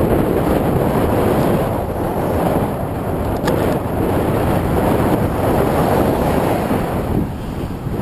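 Wind buffeting the microphone of a camera on a moving bicycle: a loud, steady rushing noise.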